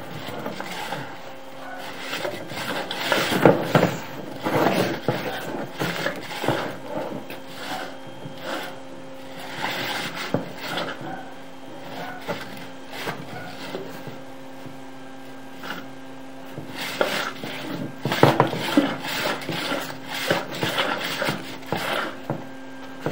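Sewer inspection camera and its push cable scraping and rubbing in irregular bursts as they are pushed up the drain line, over a steady low hum.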